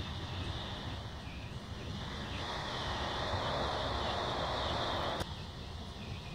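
Inside a moving TER regional train: the steady rumble of the wheels on the rails. A louder rushing hiss builds from about two seconds in and cuts off suddenly about five seconds in.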